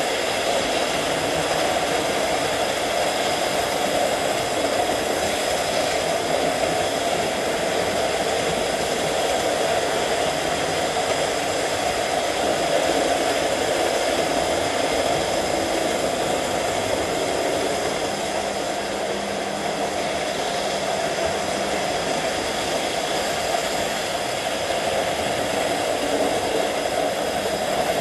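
Several OO gauge model trains running at once on a layout: a steady whir of electric motors with wheels rumbling along the rails.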